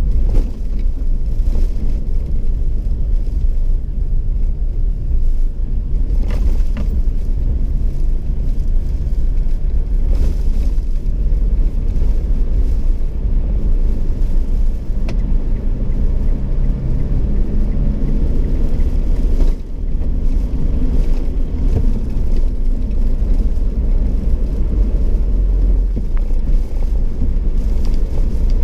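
Steady low rumble of engine and road noise inside the cab of a 2018 Mitsubishi Triton HDX pickup driving along, dipping briefly about two-thirds of the way through.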